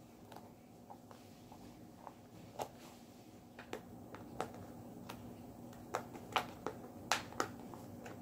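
Faint scattered clicks and crackles of a thin plastic cup being handled while yarn is pushed through a small hole in its base, coming more often and louder in the second half, over a faint steady hum.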